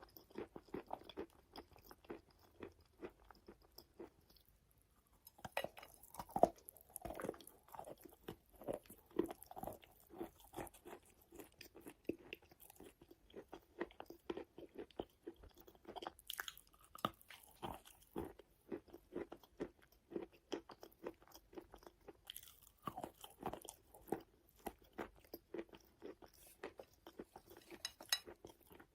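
Close-miked biting and chewing of wet chalk: a dense, soft crunching with brief lulls about four seconds in and again around twenty-two seconds.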